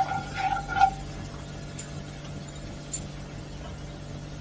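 A plastic slotted spoon scraping and squeaking against a nonstick kadai for about the first second, stirring cumin and ajwain seeds in hot oil. After that the oil sizzles steadily around the seeds, with a couple of small pops.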